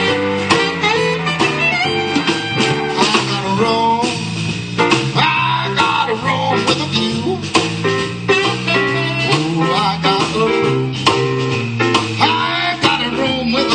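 A live band playing a song, with guitar and a steady bass line.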